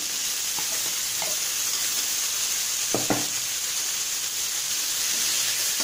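Chopped cluster beans sizzling steadily in hot oil in a metal kadai as they are tipped in with the sautéed onions, with a short knock of the spatula about three seconds in.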